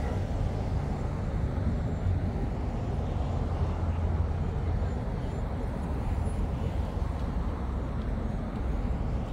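Steady low rumble of distant road traffic, with no distinct events standing out.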